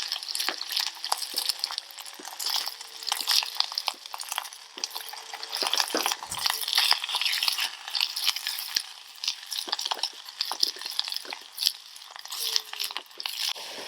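Bite-sized chicken frying in hot olive oil in a pan, a steady sizzle with crackling spatters, and frequent small clicks and scrapes of a utensil stirring the pieces.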